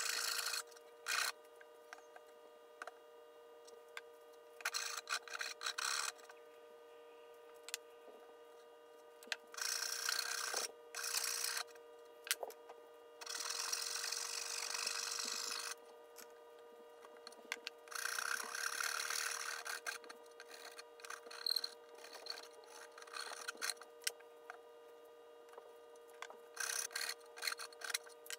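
A hand file scraping along a wooden hammer handle clamped in a vise, in short bursts of strokes separated by pauses. A faint steady hum sits underneath.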